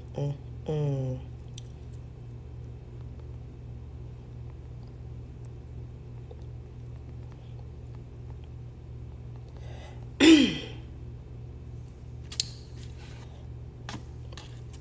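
A person's short, loud vocal burst with a falling pitch about ten seconds in, like a sneeze or throat clearing, over a steady low hum. There is a brief "mm" near the start and a few faint clicks near the end.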